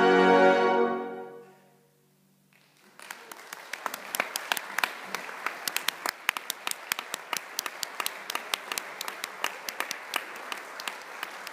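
A fanfare band's brass and saxophones hold a final chord that is cut off about a second in and dies away in the hall's reverberation. After a brief moment of near silence, applause starts and continues.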